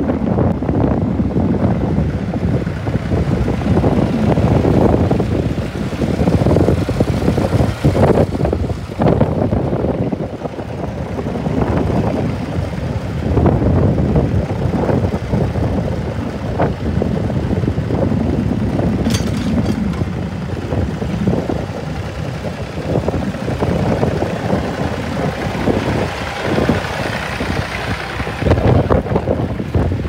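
Vintage tractor engines running under load as they pull ploughs through the field, with wind buffeting the microphone.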